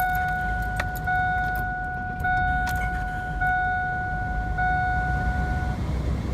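Chevy Venture's dashboard warning chime sounding a steady, pitched tone, re-struck about once a second, stopping a little before the end. Underneath it the minivan's engine idles steadily while warming up.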